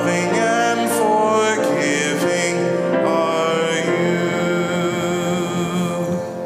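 Worship song sung with instrumental accompaniment, the voices and instruments settling on a long held final chord that begins to fade near the end.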